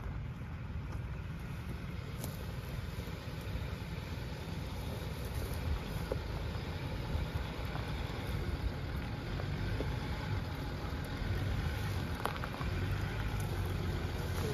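Land Rover Discovery 3 engine running at a slow crawl over a rocky off-road track, a steady low rumble.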